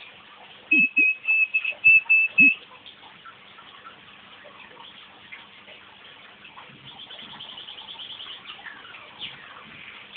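Crossbred canary singing: a loud run of about eight quick repeated notes on one pitch in the first couple of seconds, then quieter song with a fast trill and a few falling notes near the end.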